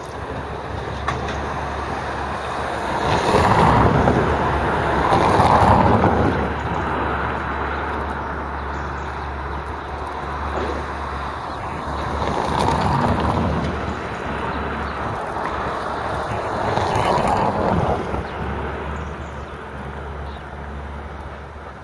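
Steady low engine drone of yard machinery, with rushing noise that swells and fades about four times, the loudest near the start.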